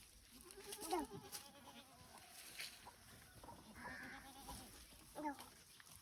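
Goat bleating: three short wavering bleats, the loudest about a second in.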